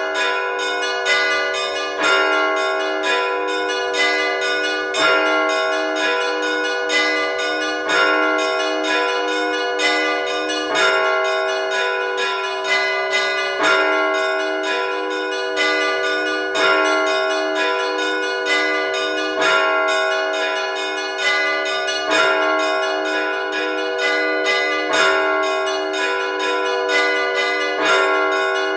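Russian Orthodox church bells rung by hand in a simple peal of the everyday ('budnichny') Rostov style. Several bells of different pitch are struck in a repeating pattern over a constant hum of ringing, with a louder stroke about every three seconds.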